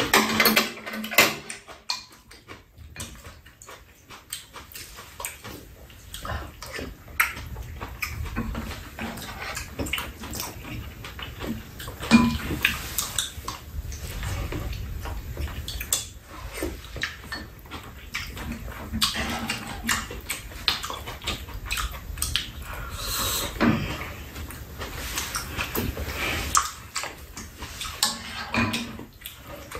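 Eating sounds of two people: chewing and slurping, with spoons and chopsticks clicking irregularly against bowls and a pan.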